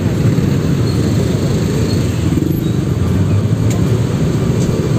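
Steady low rumble of car and motorcycle engines idling and creeping forward in congested road traffic, heard close up from among the vehicles.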